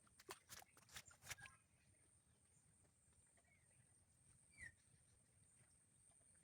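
Near silence: faint outdoor ambience with a few soft clicks in the first second and a half, one short chirp about four and a half seconds in, and a faint steady high-pitched tone.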